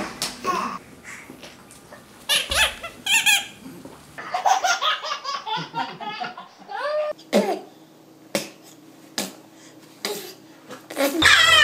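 A one-year-old baby laughing, babbling and giving high squeals in a run of short clips cut one after another.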